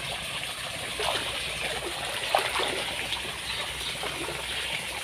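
Water trickling and seeping over a wet mud bank, a steady hiss with scattered soft pops, the sharpest a little over two seconds in.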